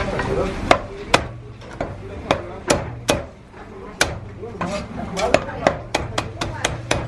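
Heavy cleaver chopping marinated goose on a thick wooden chopping block: a series of sharp, irregular chops that come faster in the second half, about three a second near the end, over a low steady hum.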